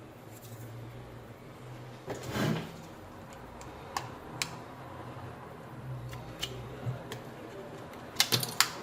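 Small sharp clicks and taps of phone-repair tools and parts being handled on a workbench, with a brief scraping rustle about two seconds in and a quick run of clicks near the end, over a low steady hum.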